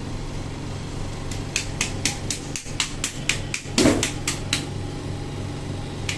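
Quick, evenly spaced slaps of a gloved hand patting a newborn held upside down by the feet, about four a second. They start about a second in and stop about two-thirds of the way through, over a steady room hum. One louder sound comes just before the pats stop.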